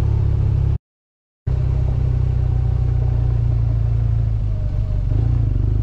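BMW R1200GS boxer-twin engine running steadily as the motorcycle is ridden, a deep, even rumble. The sound drops out completely for a moment about a second in, then carries on.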